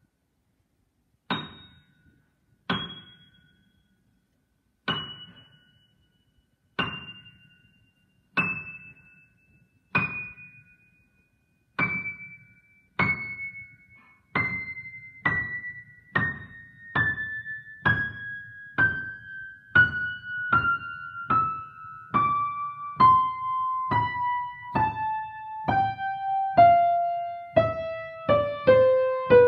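Piano notes struck one at a time in a descending run from near the top of the keyboard, each ringing and dying away. The notes come slowly at first, about one every second and a half, and speed up steadily until several sound each second near the end.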